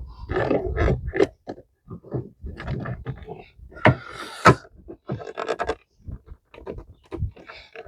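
Hands fitting a turn-signal bulb socket into a car's light housing: irregular plastic clicks, knocks and scraping as the socket is pushed and twisted into its slot.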